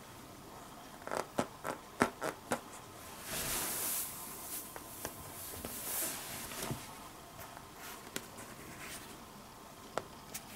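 Hands turning a bicycle's rear wheel and handling its flat tyre: a quick run of clicks, then rubbing and scraping noises, with a few sharp clicks near the end.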